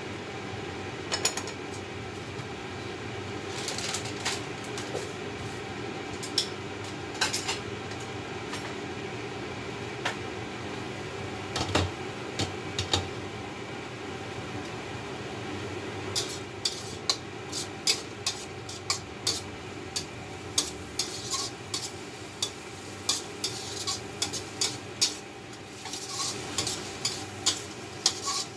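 Sliced mushrooms sizzling in a steel wok with a steady hiss. A few scattered metal clinks in the first half, then from about halfway on a quick run of clinks and scrapes as a metal spatula stirs the mushrooms against the wok.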